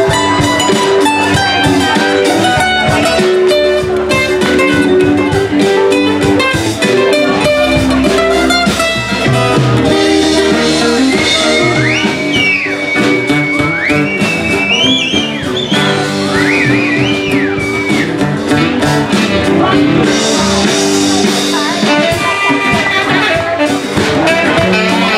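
Live band playing an instrumental passage with guitars, saxophone, keyboard, bass and drums. In the middle a lead line of high notes bends and slides up and down over the band.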